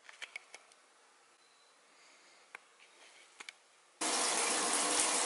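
A few faint clicks in a quiet bathroom. About four seconds in, water suddenly starts running hard from the bathtub's mixer tap and keeps running steadily.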